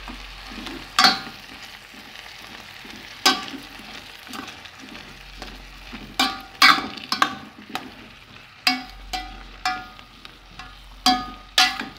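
Plastic spoon stirring chopped huitlacoche and onion in an enamel pot over low heat, with a low sizzle underneath. The spoon knocks against the side of the pot about a dozen times, most often in the second half, and each knock gives a short ring.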